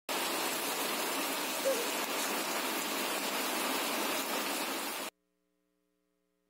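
Steady rain, an even hiss that cuts off suddenly about five seconds in.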